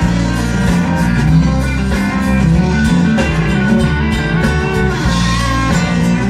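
Live country band playing an instrumental break between sung verses, with no vocals.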